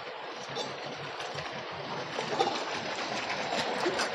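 Steady hiss of background noise with a few faint clicks.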